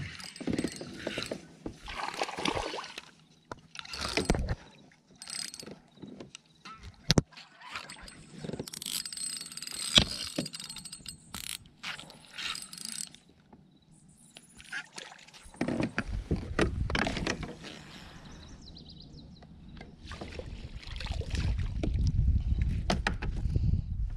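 Tackle handling aboard a fishing kayak: scattered clicks and knocks with the mechanical whir and clicking of a baitcasting reel being cast and wound in. One sharp click about ten seconds in is the loudest, and a low rumble sets in after about fifteen seconds.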